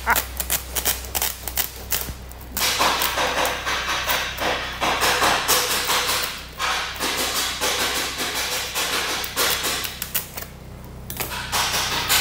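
Scissors snipping through the top of a stiff woven plastic sack, a rapid run of sharp snips and crackles. The sack rustles and crackles as it is handled, in two main stretches with a pause between.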